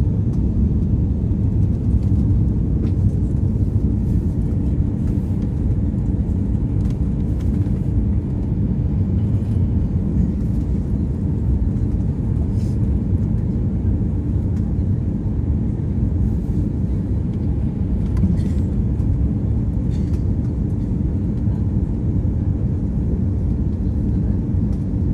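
Steady low cabin rumble of an Airbus A340-600 on approach, engine and airflow noise from its four Rolls-Royce Trent 500 engines heard from inside the cabin, with a faint steady hum within it.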